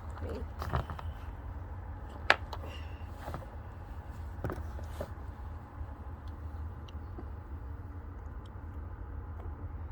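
A few light clicks and knocks from handling a cap-and-ball revolver and its powder-loading gear, one sharper click about two seconds in, over a steady low rumble.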